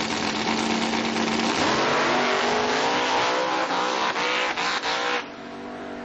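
Drag race car launching off the start line and accelerating hard down the strip, its engine note rising in pitch, with several brief dips in the sound. The sound drops away suddenly about five seconds in.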